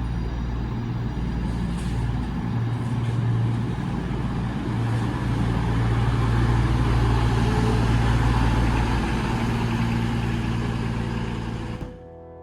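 Diesel passenger train's engines running close by at the platform: a loud, steady low drone under a broad hiss. It cuts off suddenly near the end.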